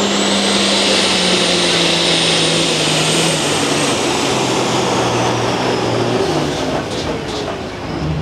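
Turbocharged light super stock pulling tractor under full power on a pull, its engine note sliding slowly lower in pitch while a high turbo whine rises and then falls away. The engine eases off near the end.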